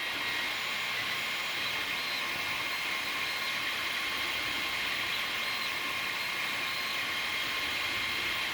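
Creality Ender-3 3D printer running a print: steady fan hiss with the high whine of the stepper motors, which shifts slightly in pitch now and then as the print head changes moves.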